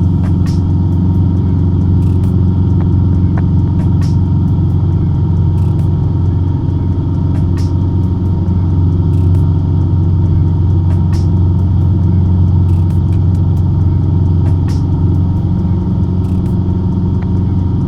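Cessna 150's Continental O-200 four-cylinder engine and propeller droning steadily in flight, heard from inside the cabin, with faint clicks every few seconds.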